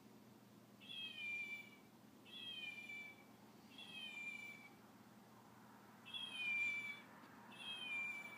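A plush toy fox gives five electronic meows as a puppy presses on it. The meows come about one a second and a half apart, each lasting about a second and falling slightly in pitch.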